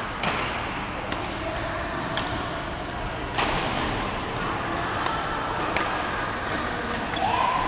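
Badminton rackets hitting a shuttlecock in a doubles rally: sharp, crisp strikes about once a second, the hardest about halfway through, ringing in a large hall.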